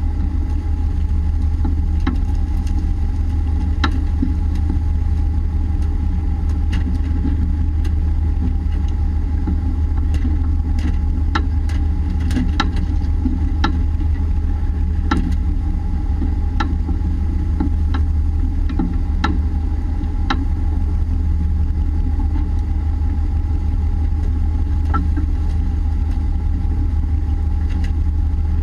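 A fishing boat's engine running steadily at a constant speed, a strong low hum with a steady whine above it. Scattered sharp knocks and clicks come from work on deck.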